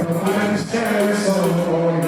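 Live dancehall reggae music playing steadily, with a voice singing over it.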